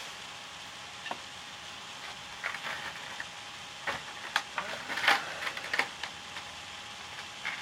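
Plastic packaging crackling, with scattered light clicks, as plastic miniature figures are handled and pulled out, over a steady faint hiss.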